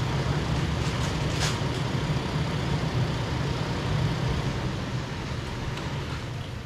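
A vehicle engine idling with a steady low hum, with a single light clatter about one and a half seconds in.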